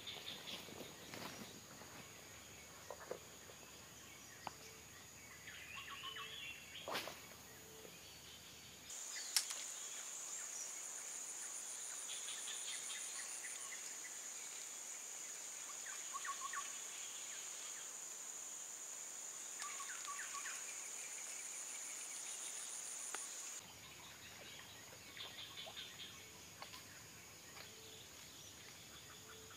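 Insects shrilling steadily in a high, unbroken drone, with a finely pulsed trill above it through the middle. Scattered short bird chirps come in now and then. Two sharp clicks fall around a third of the way in.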